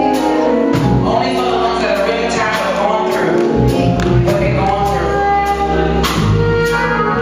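Live gospel music: singing over a band with a steady percussion beat.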